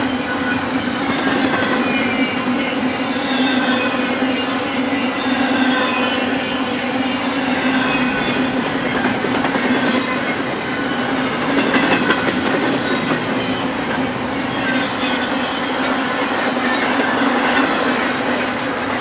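Intermodal freight cars carrying highway trailers and double-stacked containers rolling past, steel wheels on rail giving a steady rumble and clatter. Thin high tones slide down in pitch over and over, with a brief louder patch about twelve seconds in.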